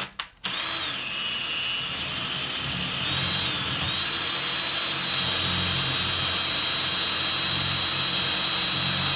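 Cordless Ryobi 18-volt drill with a masonry bit boring into a concrete lintel in plain drill mode, not hammer; the bit is going right in. After a brief blip it runs continuously with a steady high motor whine.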